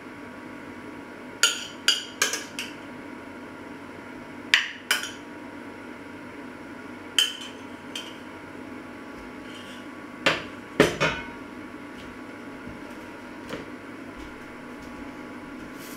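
A metal spoon clinking against a small stainless saucepan and a china plate while food is served, a dozen or so sharp clinks spread out over a steady low hum, with two heavier knocks about ten seconds in.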